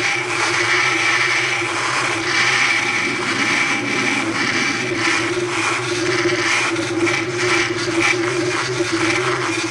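A steady, machine-like whirring drone with a low hum and a higher whine running under it, with faint crackling clicks in the second half.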